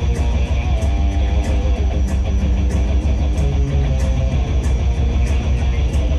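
Background music: guitar-driven track with a steady beat.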